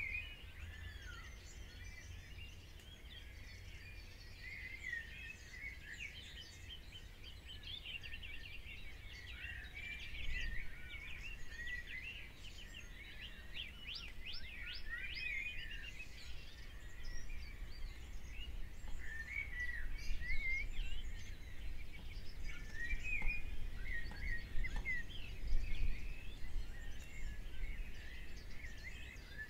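Songbirds singing and chirping, several at once, in quick overlapping trills over a steady low rumble.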